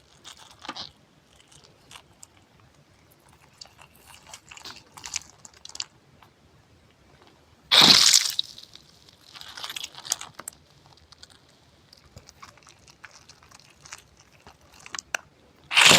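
Close-miked ASMR crunching: scattered small crackles and clicks, with a loud crunch about halfway through and another at the very end.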